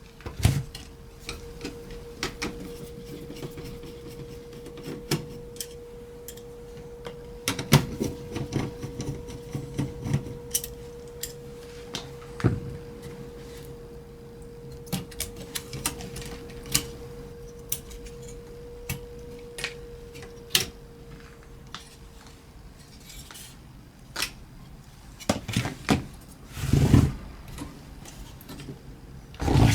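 Small clicks, taps and knocks of a car radio head unit and its parts being handled during repair, scattered irregularly with a few louder knocks near the end. A faint steady tone runs underneath and stops about three-quarters of the way through.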